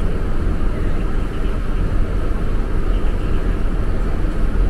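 Steady low rumble of a river shuttle boat's engine under way, mixed with rushing water and wind, heard from inside the boat's open-sided cabin.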